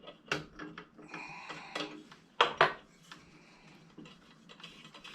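Metal clinks, taps and scrapes of a small wrench working on the fittings of a Coleman 220F lantern during disassembly. Two sharper clanks about two and a half seconds in are the loudest.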